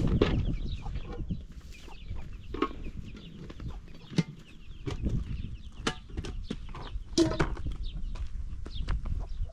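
Chickens clucking now and then over sharp clinks and knocks of metal pots and dishes being handled.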